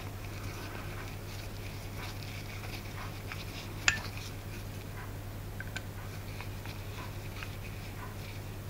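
Small screwdriver turning the idle needle screw in a model glow engine's carburettor: faint metal clicks and scrapes, with one sharp click about four seconds in. A steady low hum runs underneath.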